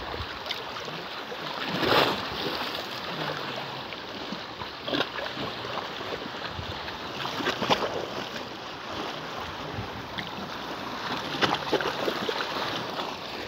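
Small sea waves lapping and washing in the shallows: a steady wash with a louder splash every few seconds.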